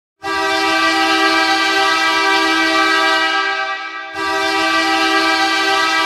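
Hockey arena goal horn blasting a steady, low horn chord. The first long blast fades near four seconds, and a second blast comes in about four seconds in.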